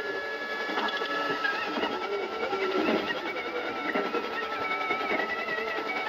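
Degen CY-1 portable radio playing shortwave reception on 11.530 MHz through its small speaker: static hiss with a steady interference whistle and a higher wavering whistle, no intelligible speech.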